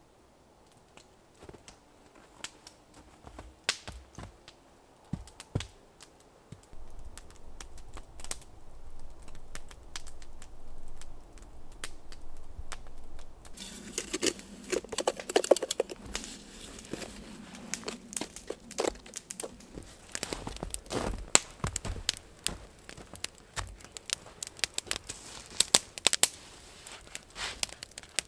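Wood campfire crackling with sharp pops and snaps, sparse and distant at first, then close and dense about halfway through. Around the middle, a metal pot scrapes and crunches as it is scooped through snow.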